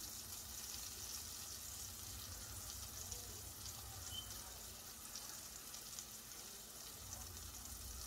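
Plant-based burger patties frying in a stainless steel skillet: a faint, steady sizzle with light crackling, over a low hum.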